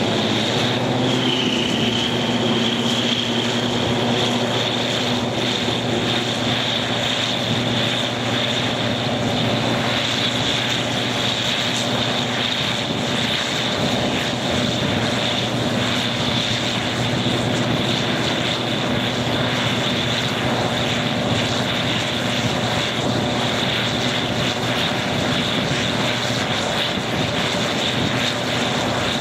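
Slovenian class 664 diesel locomotive's EMD two-stroke V16 engine working hard while the train is under way, heard from beside the cab: a loud, steady thrash with a high whine above it that rises slightly about a second in.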